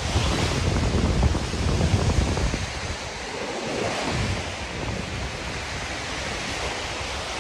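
Surf washing onto a sandy beach, mixed with wind buffeting the microphone; the wind rumble is heaviest for the first two and a half seconds, then settles into a steadier wash.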